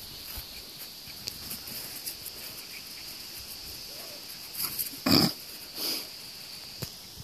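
Border terrier puppy making a few short sounds as it runs with a toy in its mouth: three brief sounds about five to six seconds in, the middle one the loudest.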